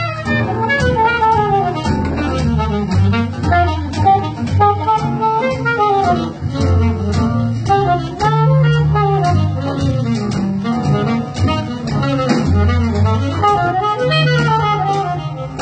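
Small jazz band playing live: a saxophone leads with a winding melodic line over double bass and drums, with a steady ticking cymbal pattern.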